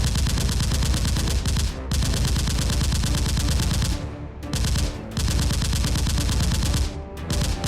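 Rapid automatic gunfire in long bursts, broken by short pauses about two, four, five and seven seconds in: a gunfire sound effect laid over a Nerf gunfight.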